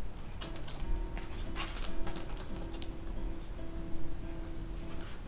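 Paper prints and cards being handled and shuffled: scattered light rustles and soft taps of card on card, over faint background music.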